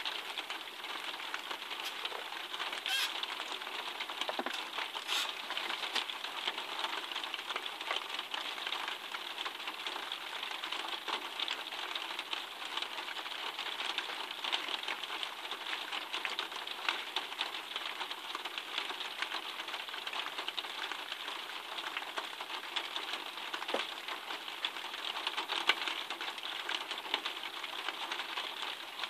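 Steady rain falling, a dense, even patter of countless small drop ticks.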